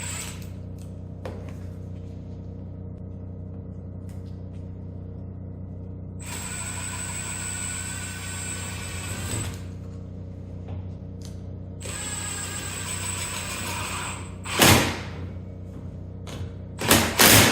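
A power drill running in two bursts, one of about three seconds and one of about two, driving in the fasteners of the extinguisher mount. It is followed by a few sharp knocks near the end, over a steady low hum.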